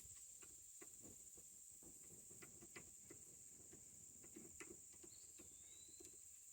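Near silence: a few faint, scattered light clicks as a nut and metal parts are handled on the sawmill, over a steady high-pitched insect drone.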